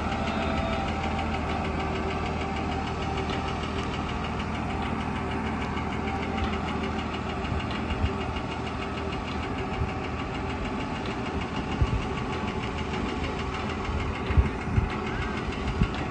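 Diesel engine of a truck-mounted mobile crane running steadily as it holds and slews a suspended load. A few short low thumps sound in the second half.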